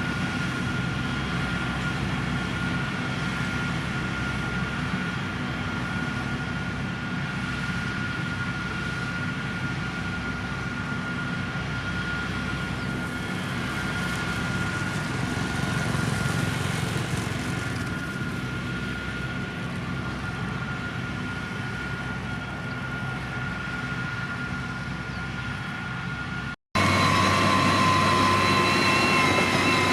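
Heavy diesel road-construction machinery running steadily, a low engine drone with a constant high whine above it. About 27 s in, the sound cuts out for an instant and comes back louder, with a different machine sound and several high tones.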